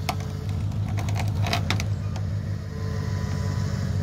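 Ford pickup truck's engine running steadily at low speed while towing a chicken coop by a strap, with a few short clicks about a second in.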